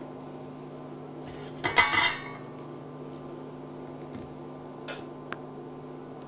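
Aluminium pot lid lifted off and set down with a metallic clatter and ringing about two seconds in, followed by a couple of light clicks near the end. A steady low hum from the induction hob runs underneath.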